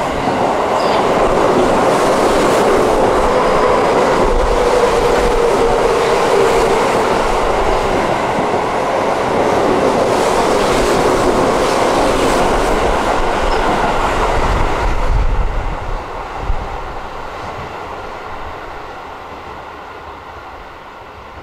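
Keio Line electric commuter train passing through the station at speed without stopping: a loud rolling rumble and clatter of steel wheels on the rails. About fifteen seconds in, the sound drops suddenly as the last car clears, then fades away.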